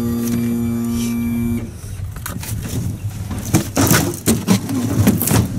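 A steady motor drone that cuts off suddenly about a second and a half in, followed by irregular knocks and clatter of gear being handled in an aluminium boat.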